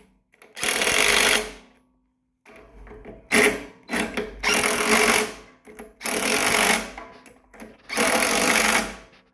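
Porter-Cable cordless impact driver hammering in short bursts of about a second each, five or six times, as it runs down and tightens the valve caps on a brass pressure washer pump head.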